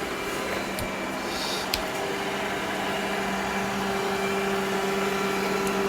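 Ecovacs Deebot N10 robot vacuum running: a steady motor hum, with a higher whine joining in about two seconds in and a few faint clicks.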